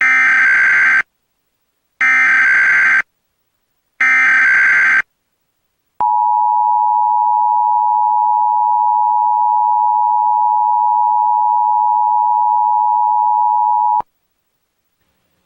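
Emergency Alert System tones opening a Required Monthly Test: three one-second bursts of SAME digital header data, a second apart. They are followed by the two-tone EAS attention signal (853 and 960 Hz), held steady for about eight seconds and then cut off suddenly.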